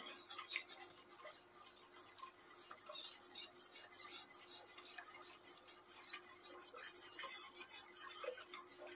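A wire whisk stirring yogurt in an aluminium pot, a quick, faint run of clicks and scrapes as the wires brush the metal. The yogurt is being stirred without pause as it heats toward the boil.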